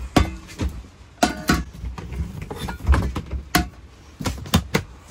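Cooking gear being handled: a metal baking pan and a portable camp stove-oven taken out of storage and set down, giving about nine irregular knocks and clunks.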